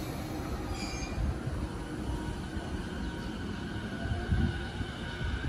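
A JR East E233 series electric commuter train pulling out of the station. It makes a steady low rumble of wheels on rail under a faint steady whine, with a brief high squeal about a second in.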